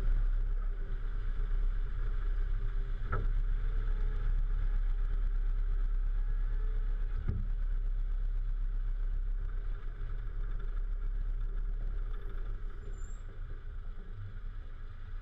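Volvo FH 440 truck's inline-six diesel engine running with a steady low rumble. Two short knocks come about three and seven seconds in.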